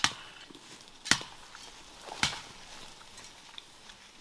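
Three sharp knocks about a second apart, evenly spaced, the first two the loudest.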